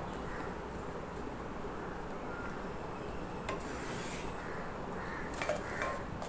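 A chapati on an iron tava over a wood fire, with a steady low hiss. Near the end a brief scrape and a few clicks sound as a spatula slides under the chapati to lift it off the pan.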